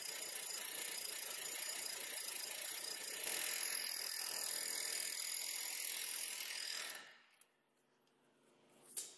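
Astro 4980 .498-shank air hammer running continuously against a ball joint, a fast rapid-fire hammering that gets louder about three seconds in and cuts off suddenly about seven seconds in. A single sharp click follows near the end.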